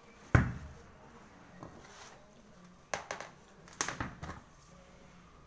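A sharp knock about a third of a second in, then a few lighter clicks and knocks about three and four seconds in.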